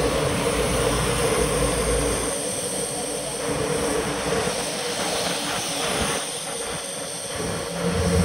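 Riding noise from a bicycle on a wet road: a steady hiss of tyres and wind on the microphone, with a low rumble that drops away after about two seconds and a low hum coming up near the end.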